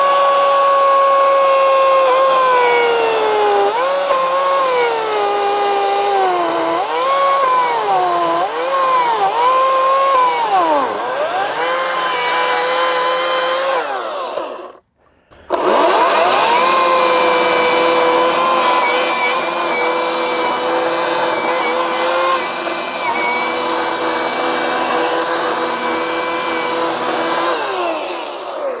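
Ryobi 40V brushless battery chainsaw running flat out with a high motor whine. Its pitch dips and wavers repeatedly as the chain bogs down under load cutting into the stump, then it stops abruptly about halfway. It spins up again a moment later, runs steadily, and winds down to a stop near the end.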